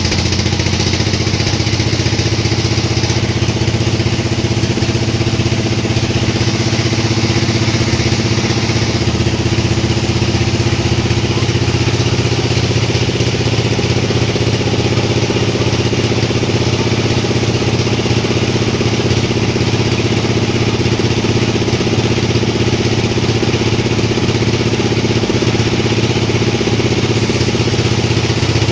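Sawmill machinery running steadily at a constant pitch and level.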